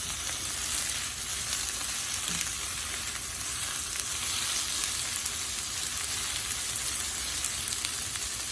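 Eggplant pieces frying in hot oil in a pan, a steady sizzle with fine crackling throughout.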